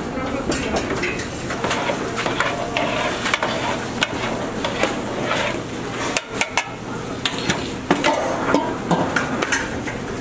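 Restaurant kitchen clatter: irregular knocks and clinks of metal pots, lids and utensils, over a steady low hum.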